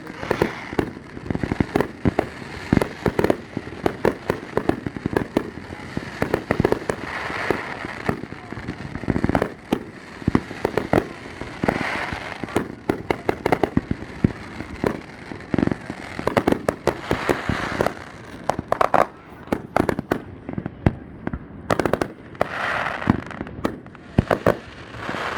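Aerial fireworks display going off in rapid succession: dense, overlapping bangs, several a second, with spells of crackling.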